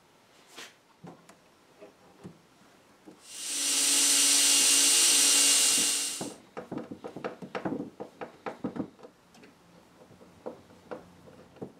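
A cordless drill runs steadily for about three seconds, working at the brass hinge of a wooden cabinet door. Then comes a quick run of light knocks and clicks as the hinge and door are handled.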